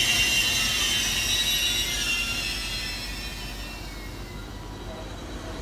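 Intercity passenger coaches rolling away along a station platform, their wheels giving a high-pitched squeal of several tones that fades out over the first few seconds, leaving a low rumble.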